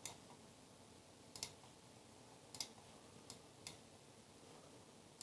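Computer mouse clicking about six times at irregular intervals, a second or so apart, with near silence between the clicks.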